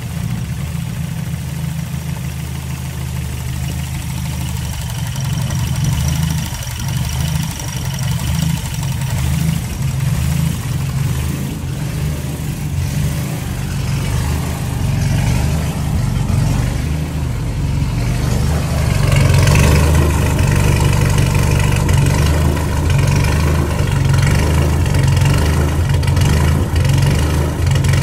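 Toyota 22R four-cylinder engine with Holley Sniper EFI running at idle, getting louder about two-thirds of the way in, with a clicking sound in its running that the owner has not yet traced.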